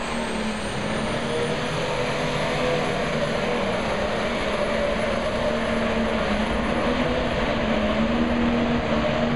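Pro Stock pulling tractor's turbocharged diesel engine running at full power under load, with a high turbocharger whine that climbs at the very start and then holds steady over a dense, loud engine noise.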